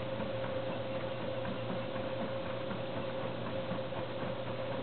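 1941 Bendix Deluxe automatic washer running through its tumble wash: sudsy water churning in the turning drum over a steady mechanical hum with a constant whine and a stream of light, irregular ticks.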